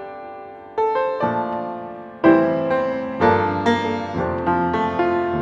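Background piano music: struck notes and chords ringing and fading, several new chords coming in at a steady pace.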